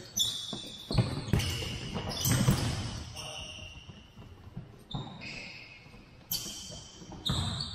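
A soccer ball kicked and bouncing on a hardwood gym floor, several separate knocks that echo round the hall, with short high squeaks from sneakers on the floor.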